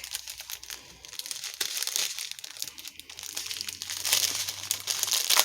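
Plastic packaging crinkling and crackling as it is handled, with a dense run of small crackles that grows louder about four seconds in.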